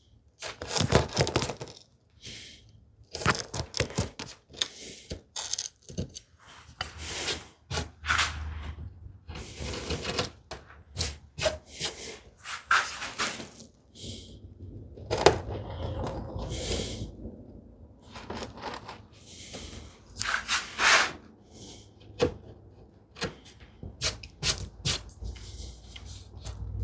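Hand chisel work on a hinge mortise in cherry: irregular scraping paring cuts mixed with sharp taps and knocks.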